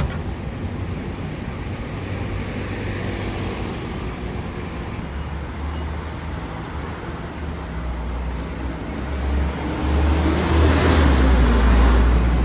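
Road traffic noise: a steady low rumble of vehicles, with one vehicle passing close and growing louder about ten seconds in, then easing off.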